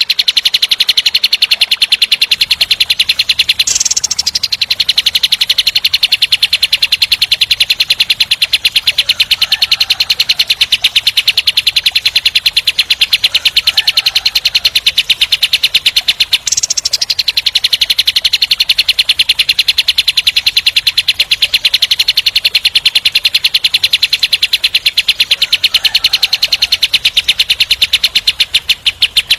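Kapas tembak songbird singing a long, rough, very fast rattling trill, repeated almost without a break, with two brief pauses about 4 and 16 seconds in.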